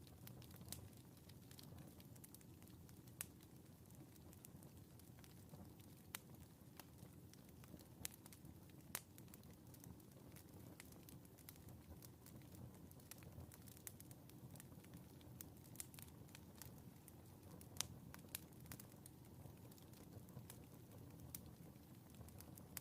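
Wood fire in a fireplace crackling faintly: irregular sharp pops and snaps scattered over a low, steady rumble.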